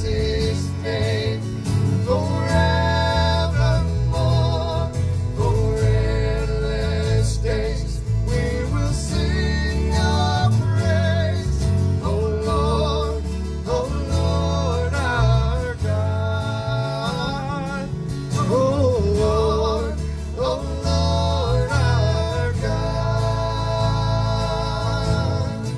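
Worship band playing a hymn live: strummed acoustic guitars with a bass line under sung melody lines.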